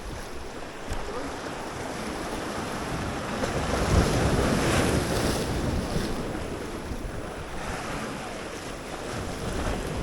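Waves washing in and wind buffeting the microphone, a steady rushing that swells louder for a moment about four seconds in.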